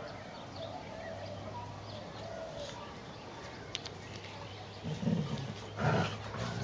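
Dogs growling at play, a few short rough growls coming in about five seconds in.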